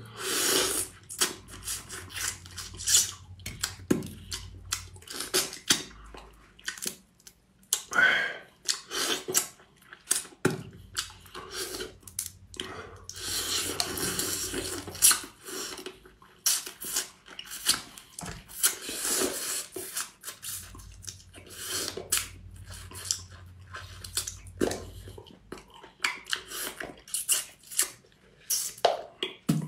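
Close-up eating of small sea crabs: irregular sharp cracks and crunches of shell being broken and bitten, with chewing between them.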